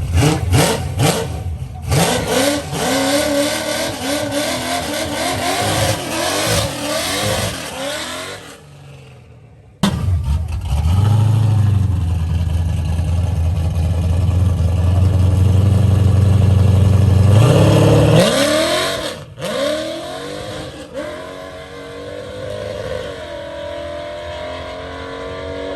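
Box Chevy's engine revved hard in quick, repeated blips, then, after a sudden jump, held at a steady high rev for about seven seconds. It then drops back and is blipped lightly a few more times.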